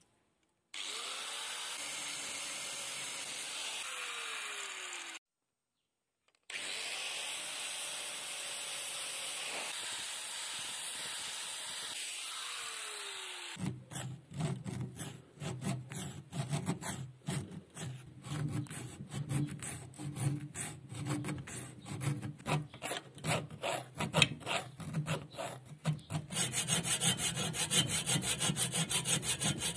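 A steady hiss, broken by a short silence, with a faint falling whine now and then. About halfway through, a hand file starts rasping in uneven strokes across the steel claw of an old nail puller held in a vise. Near the end a hacksaw takes over, cutting into the claw in fast, even strokes that grow louder.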